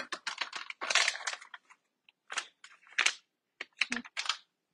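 Seasoning shaken and tapped out of a paper packet into a plastic mixing bowl, a quick run of dry crinkling taps, followed by a few separate clicks and scrapes as a spatula stirs it through raw chicken thighs.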